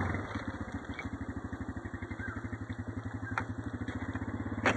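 Small motor-vehicle engine idling close by, a steady rapid low putter. Two sharp clicks cut across it, the louder one near the end.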